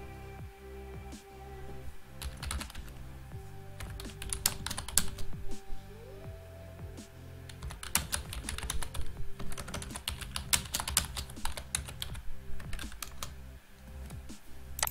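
Computer keyboard typing in several short bursts of keystrokes, over background music.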